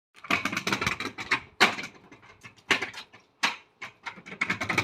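Bursts of clattering knocks and scrapes: a dense run of them, then three single sharp hits about a second apart, then another dense run near the end.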